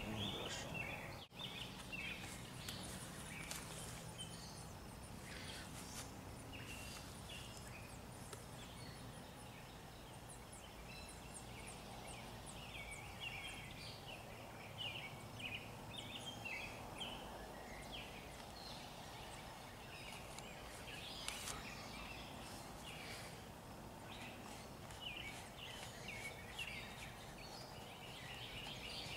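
Outdoor ambience: scattered short bird chirps over a steady low background noise.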